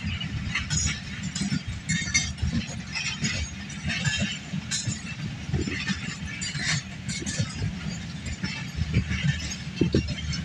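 Passenger train moving through the station: a steady low rumble of the coaches with frequent irregular metallic clinks and clanks.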